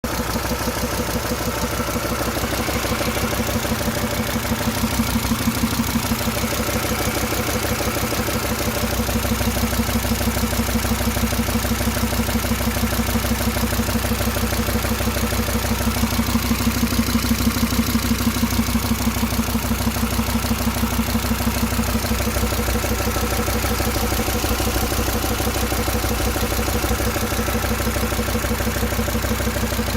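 SsangYong Rexton engine running steadily at idle, with a rapid, even knocking in its beat that the owner takes for an engine knock.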